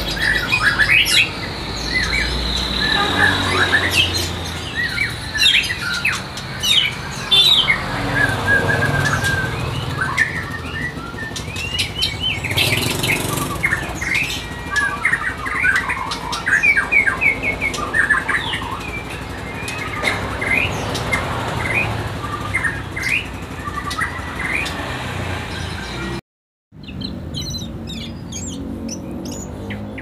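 White-rumped shama (murai batu) singing a varied song of quick whistled phrases and chirps, with other caged songbirds chirping. The sound breaks off for a moment a few seconds before the end, and the chirping resumes.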